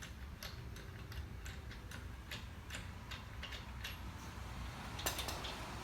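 Lug nuts being turned off a car wheel with a long lug wrench: a run of light metallic clicks, irregularly spaced at about two to three a second, with a sharper click about five seconds in.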